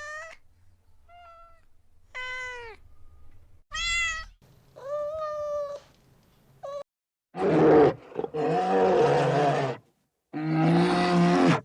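A domestic cat meowing about six times, in short rising-and-falling calls. These are followed by three longer, louder, rough roars from a larger animal.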